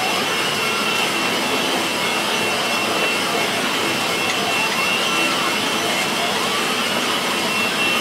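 Steady machine whir with a thin high whine, while the electric motors of a radio-controlled Cat excavator whine up and down in pitch as it lifts and swings its arm.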